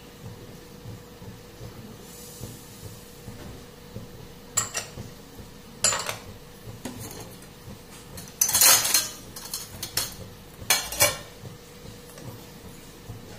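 Glass bowls and kitchen utensils clinking and clattering as they are handled: a few sharp clinks, with a burst of clattering about two-thirds of the way through, over a faint steady hum.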